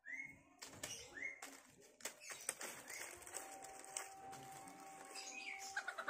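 Small birds giving short rising chirps about once a second, over sharp crackles of dry banana leaves under scratching chickens. A faint steady tone comes in about halfway through.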